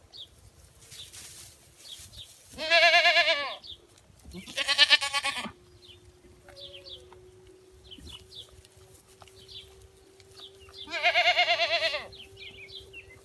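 Dairy goats bleating: three loud, quavering bleats, two close together a few seconds in and another near the end.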